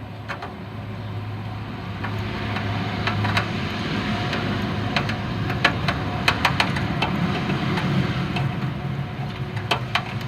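A steady low mechanical hum with sharp metal clicks and clinks scattered through it. The clicks are a socket and extension being worked as a spark plug is taken out of a VW Beetle's air-cooled engine.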